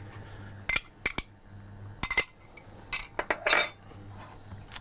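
Small glass kitchenware clinking and knocking: a glass cup handled against a glass mixing bowl and set down, a series of short sharp clinks followed by a longer rattle about three and a half seconds in.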